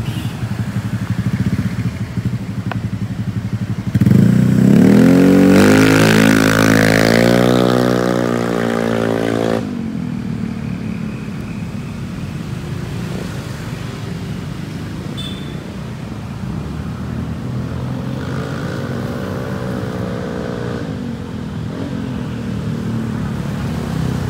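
Honda Vario 125 scooter's single-cylinder engine running through a CLD C1 aftermarket exhaust. It runs steadily, then about four seconds in it accelerates loudly with a rising pitch, drops off sharply after about ten seconds, and rises again more softly near the end.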